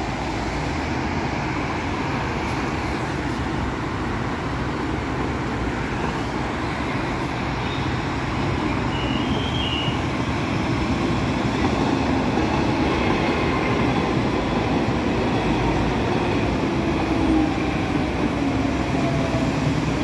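An Istanbul M1 metro train running along the track, its steady wheel-and-rail noise growing a little louder as it comes close, mixed with the noise of heavy road traffic beside the line.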